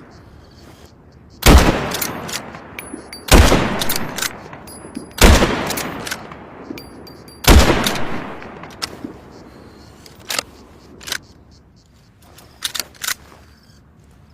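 Four rifle shots from a Remington 700 BDL bolt-action rifle, about two seconds apart, each ringing off over about a second. A few much lighter clicks follow near the end.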